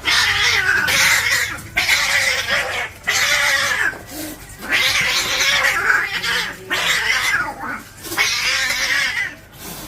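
Domestic cats caterwauling in a territorial standoff: a run of long, wavering yowls and growling howls, about six drawn-out calls one after another with short breaks between them.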